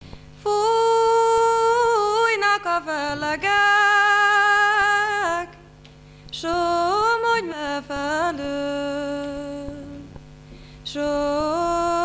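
A woman singing solo, a slow song in long held notes with small turns of pitch, in three phrases with short breaths between them.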